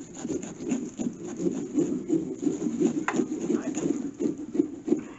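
A pumpkin-carving knife sawing through a pumpkin's shell, rasping in quick, uneven back-and-forth strokes.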